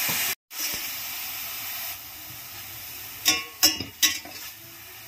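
Onion, mushrooms and garlic sizzling in hot oil in a stainless steel frying pan, with a steady hiss that cuts out briefly near the start. A little past the middle, a metal slotted spatula knocks and scrapes against the pan a few times as the vegetables are stirred.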